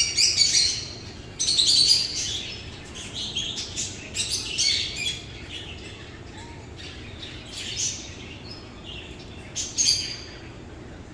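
Birds chirping in quick high calls, busiest in the first five seconds, then sparser, with a last burst of calls near the end.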